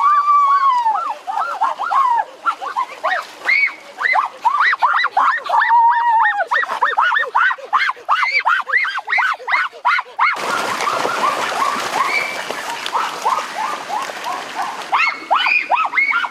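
Ducks being grabbed in a rocky stream, calling in rapid high cries, several a second. A loud stretch of splashing, rushing water runs from about ten seconds in to about fifteen.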